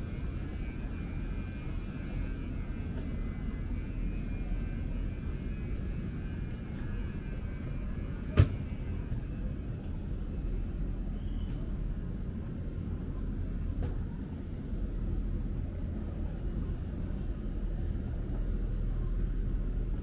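Street ambience with a steady low rumble of passing road traffic, and one sharp click about eight seconds in.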